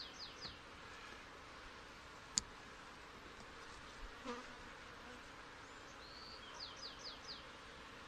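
Faint, steady hum of many honey bees on the frames of an open hive. A single sharp click comes about two seconds in, and two short runs of quick high chirps come near the start and near the end.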